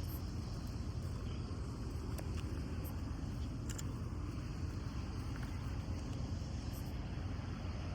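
Steady low outdoor rumble with a few faint, brief high ticks about three and four seconds in and again near seven seconds.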